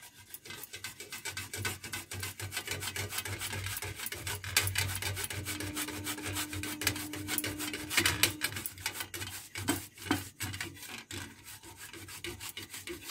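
A lump of bheli gur (jaggery) rasped back and forth over a flat metal hand grater in quick, repeated scraping strokes.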